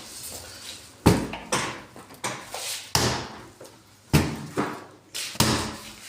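A run of sharp knocks and bangs, about seven at uneven spacing, the loudest about a second in and about four seconds in.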